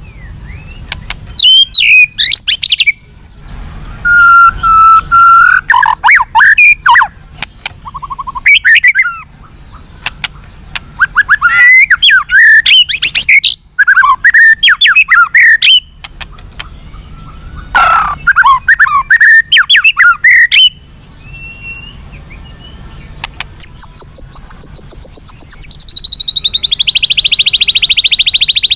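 White-rumped shama (murai batu) singing loud, varied phrases of fast-gliding whistles and chattering notes with short pauses between them. Near the end it goes into a long, fast, evenly repeated note series that drops in pitch partway through.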